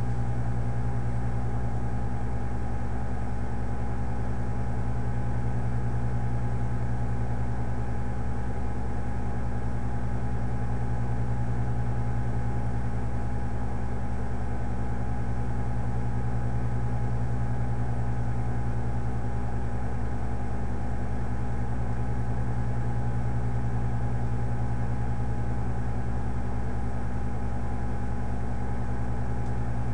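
A steady low hum with a constant higher whine above it, unchanging throughout and with nothing else happening.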